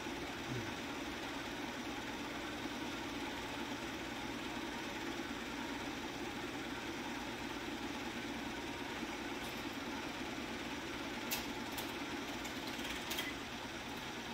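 Home-movie film projector running with a steady mechanical whir, and a few sharp clicks near the end.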